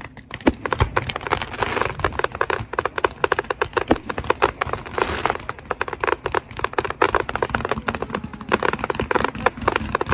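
Fireworks crackling: a dense, uneven stream of sharp cracks and pops, several every second.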